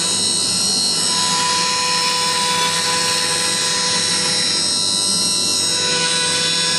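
CNC router carving a pine door: the Chinese VFD-driven spindle running at about 20,000 rpm with the bit cutting wood, under the steady rush of dust extraction through the hose on the dust shoe. A steady whine sits over the noise without letting up.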